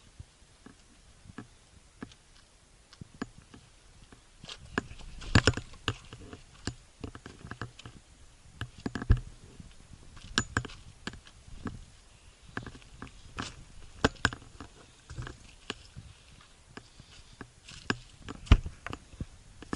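Footsteps on loose volcanic rock and gravel: irregular crunches and clacks of stones underfoot on a descent, with a few heavier knocks about five, nine and eighteen seconds in.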